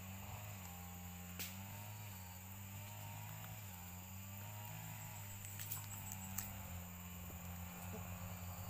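Forest ambience: a steady high insect buzz over a low hum, with a faint wavering tone for most of the first six seconds. A few faint sharp clicks come about a second and a half in and again around six seconds.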